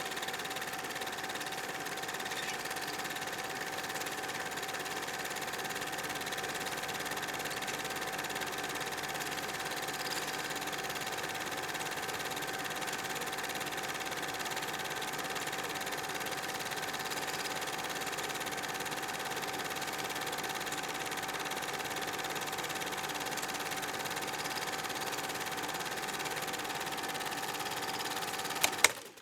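Film projector running with a steady mechanical whirr and a constant hum, which cuts off with a couple of clicks near the end.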